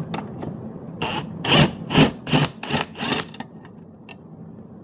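Socket ratchet on an extension bar turning out a bolt on a dishwasher's door hinge bracket: a few light clicks, then about six quick clicking ratchet strokes between one and three seconds in.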